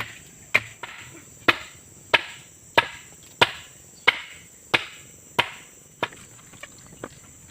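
Steady chopping strokes, about three every two seconds, each a sharp knock with a short ringing tail; the strokes stop about six seconds in, with two faint ones after. A steady high insect buzz runs underneath.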